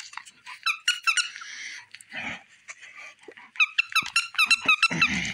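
Squeaky dog toy squeaking as a German shepherd puppy chews it: a short cluster of squeaks about a second in, then a quicker string of squeaks near the end.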